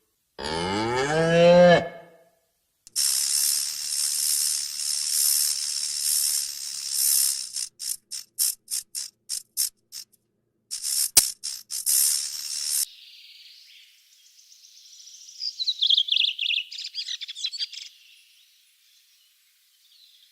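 A cow moos once. Then comes a long, high-pitched rasping sound that breaks into a run of rapid pulses, and near the end a spell of quick bird-like chirps.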